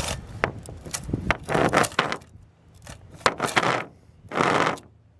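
A hand file rasping across the chainsaw chain's drive links in about four short strokes, with light metallic clicks between them. It is smoothing off burrs chewed into the lower edges of the links, which keep the chain from sliding into the bar groove.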